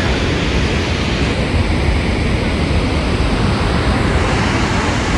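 Loud, steady rush of water pouring through the open spillway gates of Srisailam Dam, mixed with wind on the microphone.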